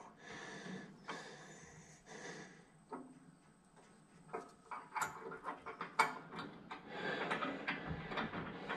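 Faint metallic clicks, taps and scraping of hands working the hardware on a no-till seed drill's mounting bracket, sparse at first and busier in the second half, with a couple of sharper clicks about five and six seconds in.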